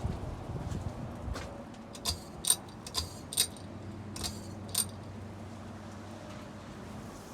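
About six light metallic clinks with a short ringing tail, spaced irregularly, fall between about two and five seconds in. Under them is a faint steady low hum of a Hunter Stratford II ceiling fan motor running.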